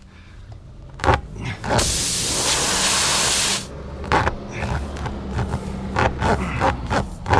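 Air hissing out of a car tire through a freshly reamed puncture for about two seconds, starting and stopping abruptly, between light knocks and clicks of the plug-kit tools being handled.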